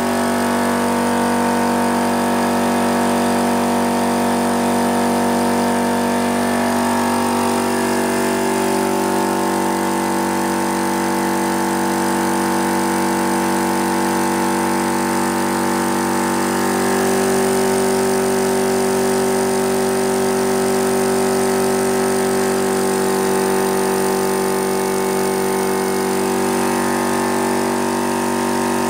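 SGS 100-litre air compressor's electric motor and pump running steadily and loud, pumping the tank back up to pressure after some air was let out.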